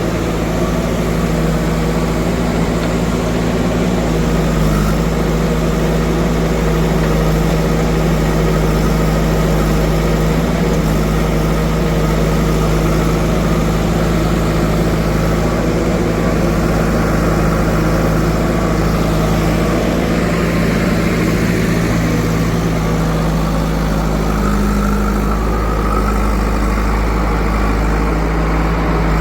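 Large diesel engine running steadily at constant speed: an even, unchanging low hum.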